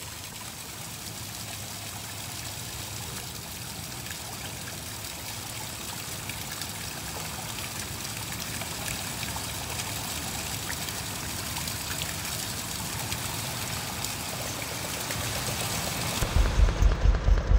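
Steady hiss of falling rain, slowly growing louder. About a second before the end the high hiss thins and a loud, regular low pulsing begins.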